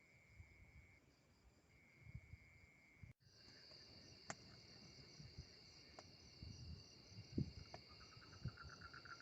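Faint chorus of crickets and other insects, steady high-pitched trilling that gets louder after a break about a third of the way in. Near the end a rapid pulsing call at a lower pitch joins in.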